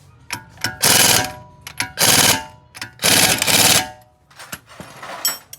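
Impact wrench firing in three short bursts of rapid hammering, tightening a nut on the front wheel hub, with light metal clicks between the bursts.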